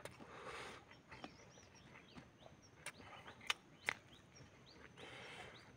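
A person eating chicken and rice by hand at close range: soft chewing and wet lip smacks, with two sharp mouth clicks about three and a half and four seconds in.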